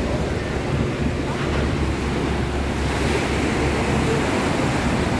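Sea surf churning and breaking against a rocky cliff face, a steady wash of water noise, with wind buffeting the microphone as a low rumble.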